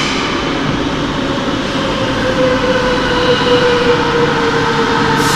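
Madrid Metro Series 8400 train pulling into an underground station. Its wheels rumble steadily on the rails, and a motor whine falls slowly in pitch as the train slows along the platform.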